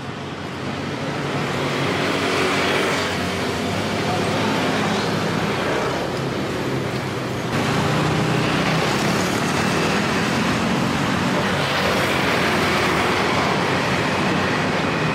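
A motor engine running steadily under a loud rushing noise, a little louder about halfway through.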